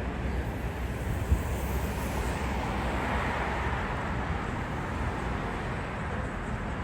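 City street ambience: a steady wash of traffic noise with low rumble, and one short thump about a second in.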